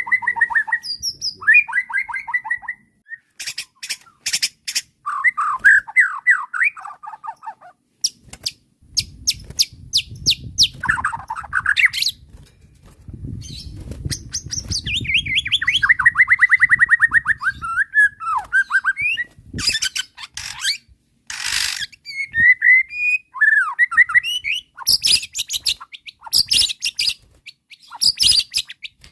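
White-rumped shama (murai batu) singing a fast, varied song: whistled phrases and trills alternating with runs of sharp rattling clicks and a long buzzy trill in the middle.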